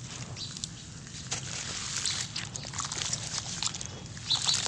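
A hand squelching and sloshing through wet sand-cement slurry in a pool of water, giving a run of small wet splats and crackles, loudest near the end.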